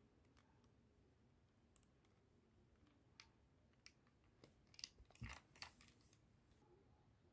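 Faint clicks and rattles of a toy Nerf blaster being handled, growing busier about four and a half seconds in, with one soft thump just past five seconds.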